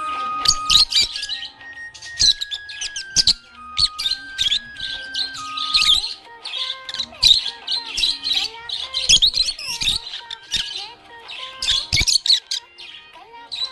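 Budgerigar chirping in quick, busy runs of high notes, over a simple instrumental melody of held notes that step up and down.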